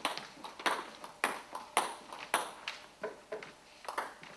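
Table tennis rally: the celluloid ball is struck back and forth, making sharp clicks off the rubber bats and the table top, about two a second.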